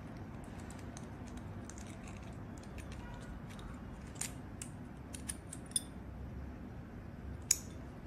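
Small metal parts of a lock decoder tool clicking as its core is fitted back into the shell: a handful of light, scattered clicks over a faint steady background, the sharpest one near the end.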